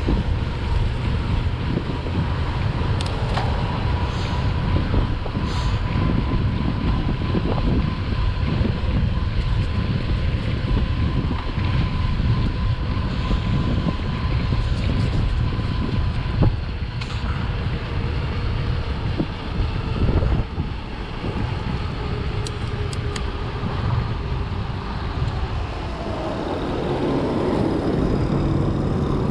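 Steady low rumble of a road vehicle on the move, with a faint steady whine in the first half and an engine note coming up near the end.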